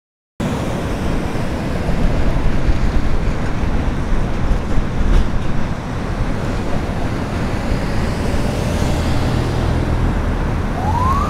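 Steady low rumble of vehicle engines and traffic, setting in after a moment of silence, with a short rising whine near the end.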